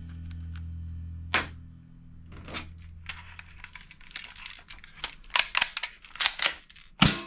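Hard plastic toy guns clattering and knocking together as they are picked up and rummaged through in a box, a run of irregular sharp clicks and knocks that grows busier and louder in the last couple of seconds.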